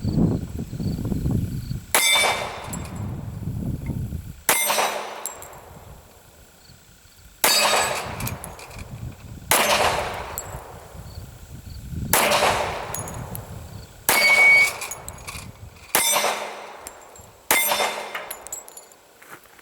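Taurus PT1911 .45 ACP pistol fired eight times at a steady, unhurried pace, about one shot every two seconds. Each shot is a sharp crack with a ringing tail that dies away.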